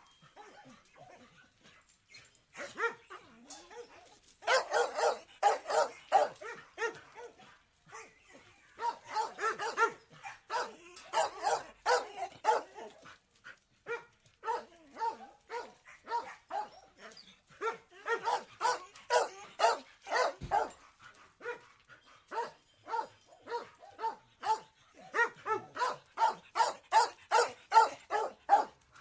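Dog barking in rapid runs of short barks, several a second, with a couple of brief pauses.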